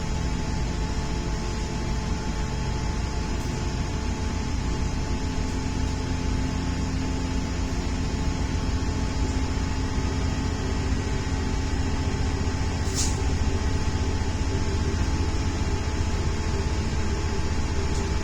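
Passenger train running at speed, heard from inside the carriage: a steady rumble of wheels on rail with a faint motor hum whose tone strengthens from about halfway in. A short sharp high squeak or click sounds once, about 13 seconds in.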